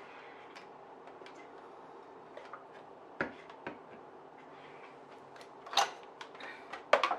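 Scattered light clicks and knocks of a small electric garlic chopper's plastic parts being handled after grinding, with a few sharper knocks about three, six and seven seconds in.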